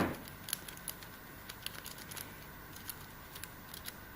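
Lock pick and tension bar working in the keyway of a Brinks Max Security padlock: a sharp click right at the start, then faint, irregular metallic ticks and scratches as the pick works the pins.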